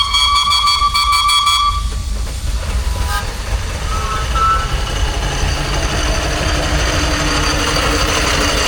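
Steam engine whistle giving one steady blast of about two seconds, followed by the engine's mechanical running noise over a low rumble.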